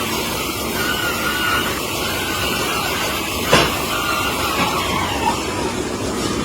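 Milking parlour machinery running steadily, a constant mechanical rush with a wavering whine that fades in and out, and one sharp click about halfway through.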